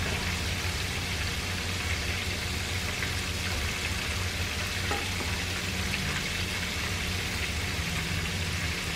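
Floured shrimp deep-frying in hot oil, a steady, even sizzle of bubbling oil, with a low steady hum underneath.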